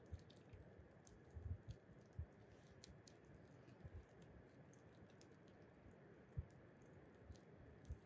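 Near silence, with faint scattered clicks and a few soft low thumps.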